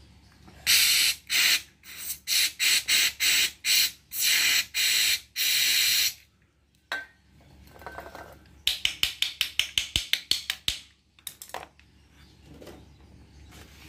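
Aerosol carburettor cleaner sprayed through its extension straw into a car fuel filter to flush dirt out of it: about ten loud hissing bursts over the first six seconds, then, after a pause, a fast run of short puffs, several a second.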